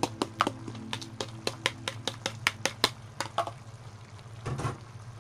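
Rapid sharp clicks and taps, about four or five a second, as sliced red chilies are knocked out of a plastic bowl into a pan of simmering goat adobo. The clicks stop about three and a half seconds in, and a softer rustle follows near the end.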